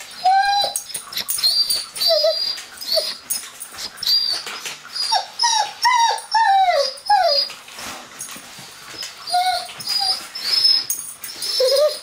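Doberman whining: short, high-pitched whimpers that fall in pitch, coming every second or so with a quicker run of them midway, mixed with light clicking.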